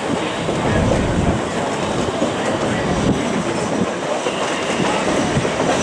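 Narrow-gauge passenger train in motion, heard from aboard: the steady noise of the cars' wheels running on the rails.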